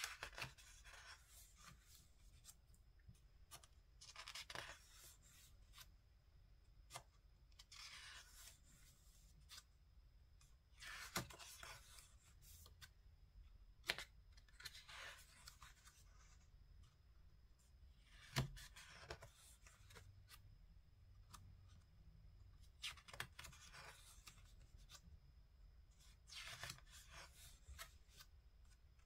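Paper pages of a photo book being turned by hand: soft swishes and rustles about every three to four seconds, with a few sharp ticks as pages flip over.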